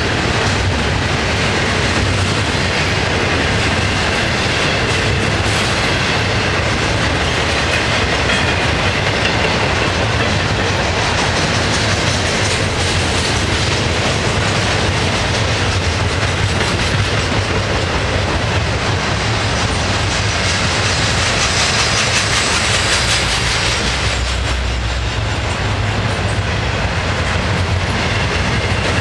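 Double-stack container well cars of an FEC intermodal freight train rolling past, their steel wheels running on the rails with a steady clickety-clack over the joints. The sound is loud and continuous, and a higher hiss swells for a few seconds about three-quarters of the way through.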